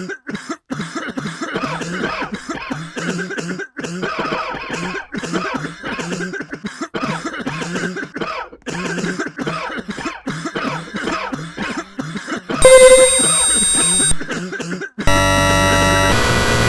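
A person coughing over and over in rapid, closely spaced fits for about twelve seconds. Then a sudden, far louder steady tone blares for about a second and a half, and from about fifteen seconds in a loud, distorted wall of overlapping tones sets in.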